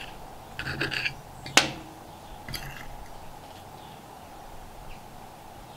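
Metal cutlery working on a plate of burrito: a few short scrapes, then a single sharp clink about one and a half seconds in, over faint steady background noise.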